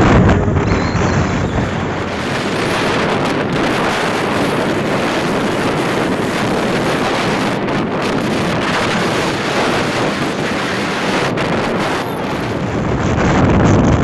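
Wind rushing over the microphone of a motorcycle moving at highway speed, with the bike's running noise beneath it.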